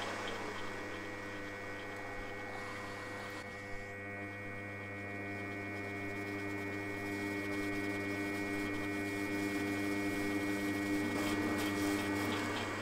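Milling machine spindle running steadily with a 15/32 in machine reamer turning as it reams the big-end hole of an aluminium conrod: a steady hum of several tones that swells slightly near the end.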